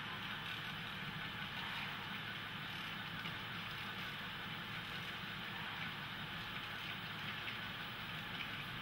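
HO scale model trains running on the layout: a steady hum with the rolling rattle of wheels on the track.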